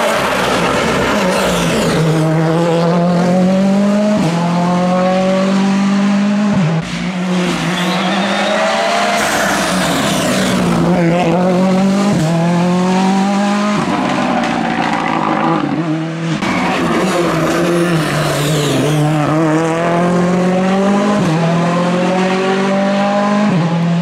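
Rally cars, Ford Fiesta R5s among them, driven flat out. The engine note climbs hard through each gear and drops sharply at every upshift, again and again as the cars pass one after another.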